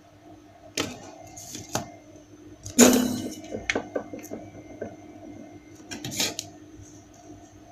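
Knocks and clatter of a solder wire spool and a soldering iron being handled and put down on a wooden table. The loudest clatter comes about three seconds in, with lighter knocks before it and another small cluster near six seconds, over a faint steady hum.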